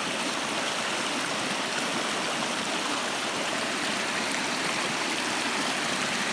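Running water of a deep creek, a steady, even rush with no breaks.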